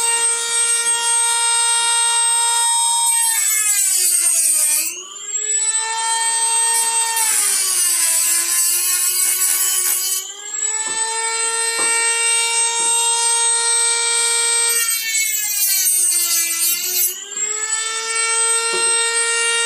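Dremel rotary tool with a cutoff wheel running with a steady high whine. Three times its pitch sags as the wheel bites into the cracks of a 1957 Chevy steering wheel's rim, with a gritty grinding hiss while it cuts, then it recovers. It is cutting the cracks wider so they can be filled with epoxy.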